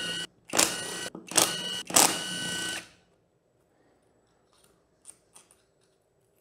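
Cordless impact wrench spinning out crankcase bolts on a Honda CRF450R engine in three short bursts of motor whine, the last the longest, stopping about three seconds in. A few faint clicks follow as the loosened bolt is handled.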